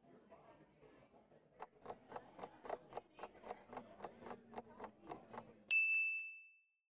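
Countdown-timer sound effect: a clock ticking evenly at about four ticks a second, ending with a single bright ding that signals time is up.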